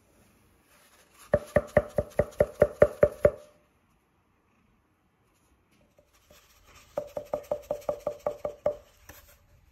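Cardboard tube tapped rapidly, giving hollow knocks: two runs of about a dozen quick taps each, some six a second, with a pause of a few seconds between them.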